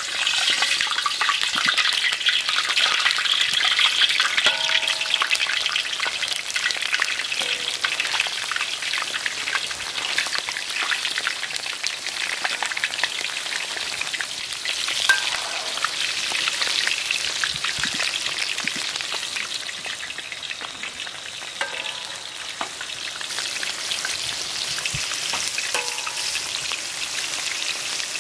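Whole sugar apples deep-frying in a wok of hot oil: a loud, steady sizzle that starts suddenly as the fruit goes into the oil. A metal spatula stirs among the fruit.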